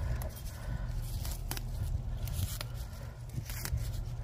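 Garlic mustard stems snapped and leaves torn by hand while picking the tender tops: several short sharp snaps with leaf rustling, over a steady low rumble.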